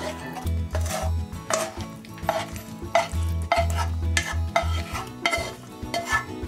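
A spatula scrapes a sticky caramelized banana and walnut mixture out of a frying pan into a plastic bowl of cake batter, with a short scrape or plop every second or so.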